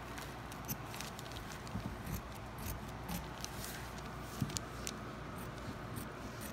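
Scissors cutting through folded fabric along a pinned paper pattern: a run of faint, irregular snips.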